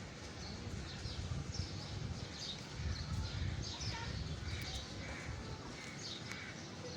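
Wild birds chirping in trees, many short high calls repeating irregularly, over a low rumble.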